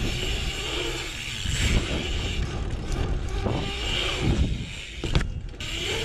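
BMX bike tyres rolling and carving on concrete, a steady rushing hiss with low rumble from wind on the rider's camera. There is one sharp knock about five seconds in.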